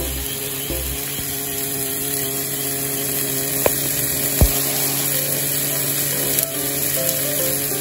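Marinated steaks sizzling on a hot griddle pan over a cartridge gas stove: a steady hiss, with two sharp clicks about halfway through.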